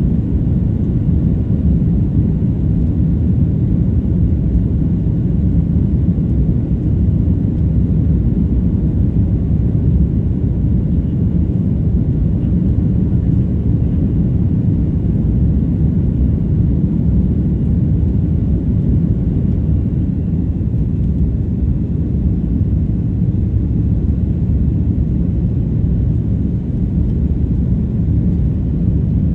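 Steady low rumble of jet engines and rushing air inside the cabin of an Airbus A330-300 during the climb after takeoff.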